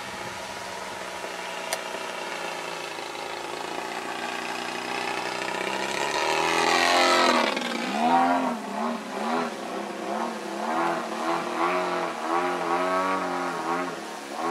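Goldwing Corvus Racer 120cc model aerobatic plane's two-stroke petrol engine and propeller in flight. The drone builds and is loudest about six to seven seconds in, as the pitch sweeps up and then falls. After that the pitch rises and falls in a pulsing pattern about twice a second.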